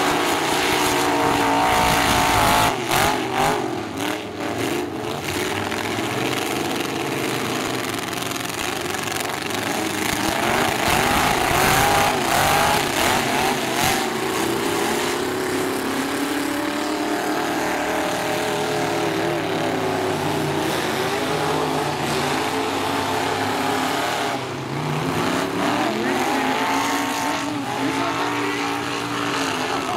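Several full-size pickup truck engines running hard and revving up and down in a demolition derby, with a cluster of impacts about three seconds in.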